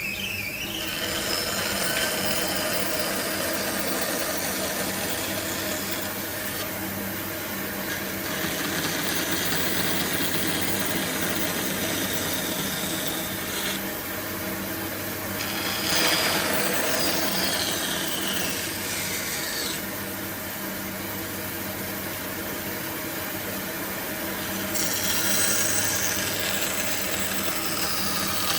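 Electric power tool running with a steady motor hum while it works wood, a continuous abrasive scraping that rises and eases as the cut or pressure changes several times.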